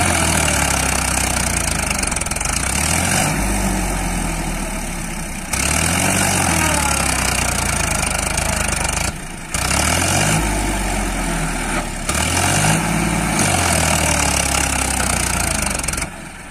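An engine running steadily, its pitch rising and falling in repeated swells about every two seconds, breaking off briefly twice.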